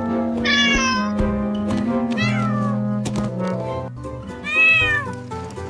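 Kitten meowing three times over steady background music, the last meow, about four and a half seconds in, the loudest.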